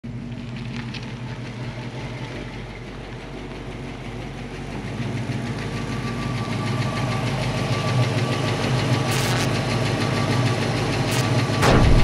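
1966 Ford Mustang's factory V8 engine running as the car drives slowly toward the microphone. It grows steadily louder, is loudest just before it cuts off at the end, and a few faint clicks come through.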